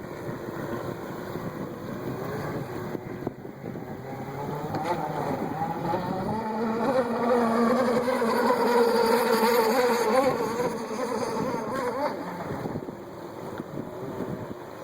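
Gas engine of a radio-controlled racing catamaran running at speed on the water, getting louder as the boat comes closer, loudest a little past halfway, then fading as it moves away.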